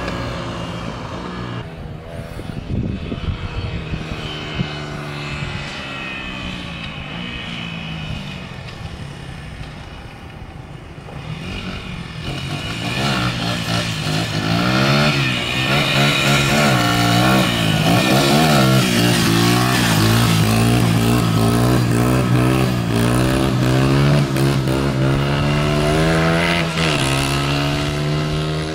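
Dirt bike engine revving up and down as the bike is ridden along the street. It is quieter and falling in pitch in the first part, then louder from about halfway, with the pitch rising and dropping again and again.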